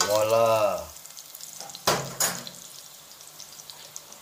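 Chopped onion and garlic sizzling in hot olive oil in a stainless steel pot. About two seconds in, the metal stirring spoon knocks twice against the pot.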